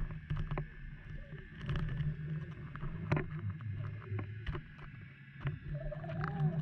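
Underwater camera audio: a steady, muffled low rumble of water with scattered sharp clicks and knocks. Near the end comes a brief tone that rises and falls, like a short moan.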